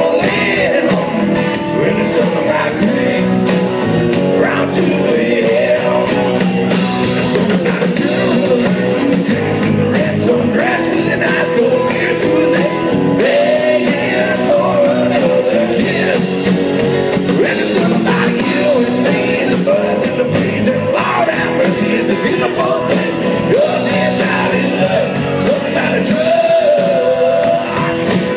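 Live band playing a song with a lead vocal.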